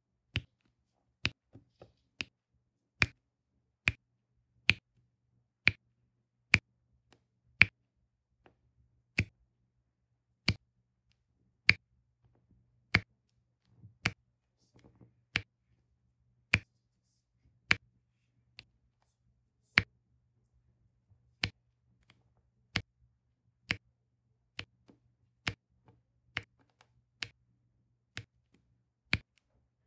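A diamond-painting drill pen setting round resin drills onto the adhesive canvas, each placement a sharp click, about one a second in an uneven rhythm.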